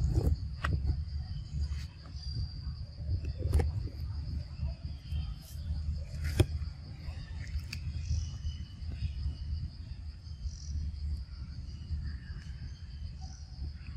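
Steady high insect drone from a forest insect chorus, with a low rumble beneath it and a few sharp clicks or snaps, the loudest about three and a half and six and a half seconds in.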